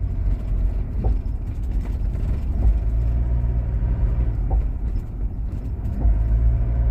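Mitsubishi Pajero Full driving, engine and road rumble heard from inside the cabin, with a few sharp clicks from the rear at irregular intervals as the throttle is pressed and released. The clicks are a clunk in the rear axle, the sign of a loose nut at the end of the rear half-shaft where it enters the wheel hub.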